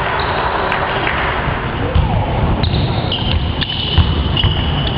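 Basketball game sounds: the ball bouncing on the court in repeated thuds, with high squeaks from about halfway through, over a background of crowd voices.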